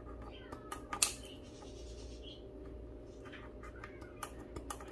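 Scissors snipping through the braided rope handle of a woven basket: a scatter of sharp clicks and crunches, the loudest about a second in and several more near the end, over a steady low hum.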